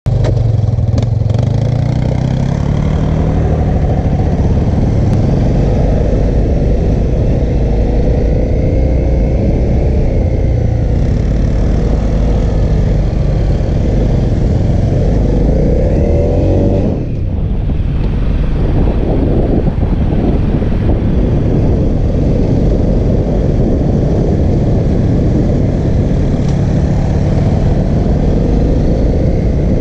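2014 Honda CRF250L's single-cylinder four-stroke engine running under way, its pitch rising as it accelerates in the first few seconds and again a little past halfway, with a brief drop in level just after.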